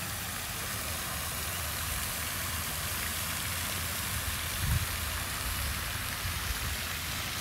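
Pond spray fountain splashing steadily, an even watery hiss, with a low rumble underneath and one brief low thump a little past halfway.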